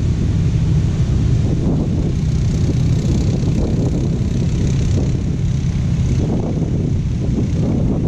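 ATV (quad bike) engine running as it drives past along the sand, its note weakening in the second half, over the rumble of heavy breaking surf and wind on the microphone.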